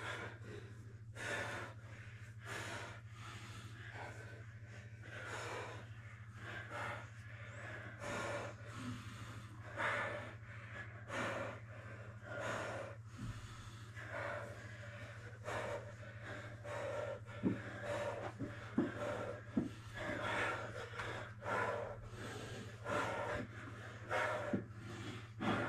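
Heavy, rapid breathing and gasps of grapplers exerting themselves in a jiu jitsu roll, one breath about every second, over a steady low hum. A few short sharp taps come in the second half.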